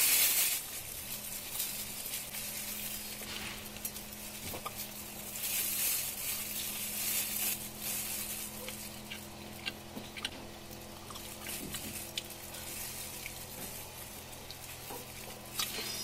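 Close-up eating sounds: food being chewed and crunched, with scattered small crackles and clicks over a steady low electrical hum.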